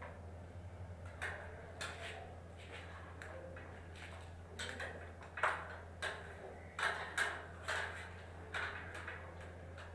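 Irregular light knocks and clicks, about a dozen, bunched mostly in the second half, over a steady low hum.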